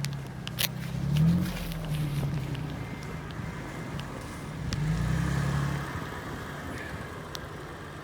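Off-road 4x4 engine running under load in snow, revving up twice, about a second in and again around five seconds in, with scattered sharp clicks and knocks.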